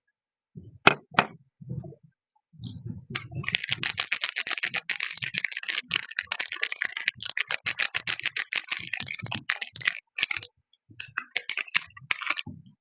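Soap packaging being unwrapped by hand: two sharp clicks about a second in, then a long stretch of dense crinkling and crackling from about three seconds in, pausing briefly and starting again near the end.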